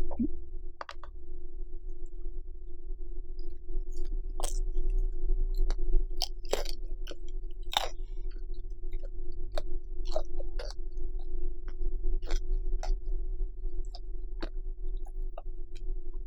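A person chewing food close to the microphone: irregular wet mouth clicks and smacks, over a steady low hum.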